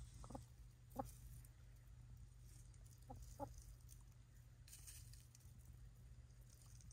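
Chickens clucking softly: four short clucks, the loudest about a second in and two close together past the three-second mark, over a faint steady low rumble.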